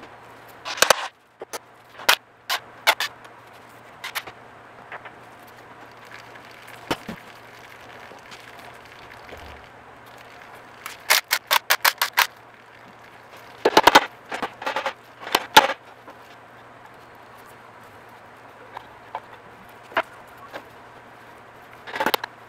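Sharp metal-on-metal hammer and tool strikes on a 1952 MG TD engine while a socket is pounded onto its rounded-off oil drain plug. Scattered single knocks come first, then a quick run of about eight strikes a little past halfway, more clusters just after, and another burst near the end, over a low steady hum.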